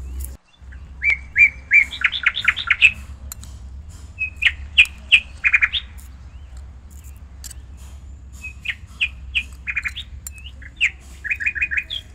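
A small bird singing in four short phrases of quick, repeated high chirps, a few seconds apart, over a low steady hum.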